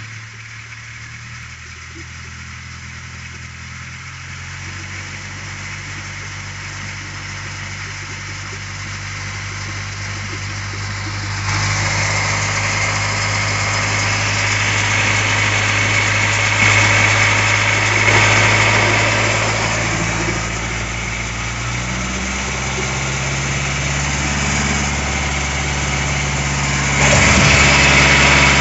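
BMW 118d's four-cylinder turbodiesel idling steadily at operating temperature. It is heard first from inside the cabin, then louder and clearer from beside the front of the car, starting about eleven seconds in.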